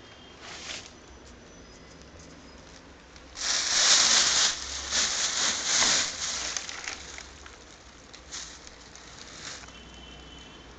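Plastic bag rustling and crinkling, handled and pulled open, in a loud stretch of several pulses lasting about three seconds, with brief rustles before and after.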